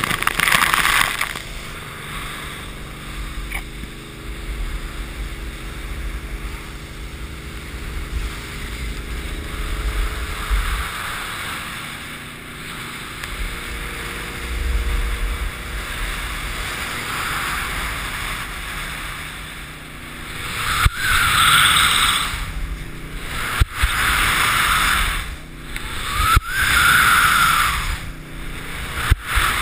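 Water rushing over a slalom water skier's helmet camera as he is pulled up behind a ski boat, then the towboat's inboard engine humming steadily under load with water hissing past the ski. From about twenty seconds in, repeated loud surges of spray hiss as the slalom ski carves hard turns.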